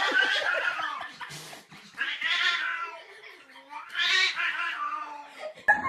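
Cat yowling at a broom pushed toward it: three long, drawn-out calls, the last the longest. A short sharp knock right at the end.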